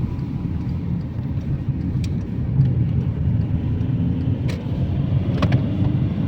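Steady low rumble of a car's road and engine noise heard from inside the moving car, with a few faint clicks.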